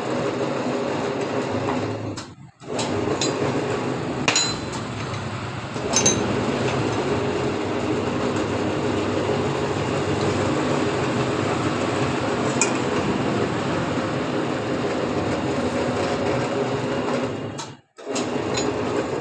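A steady mechanical buzz with a few sharp metallic clinks over it, cutting out briefly twice.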